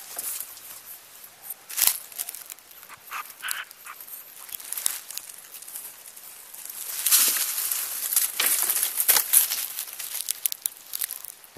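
Dry grass and leaf litter rustling and crackling as vervet monkeys move about right next to the microphone, with scattered sharp knocks and a louder stretch of scratchy rustling about two-thirds of the way through.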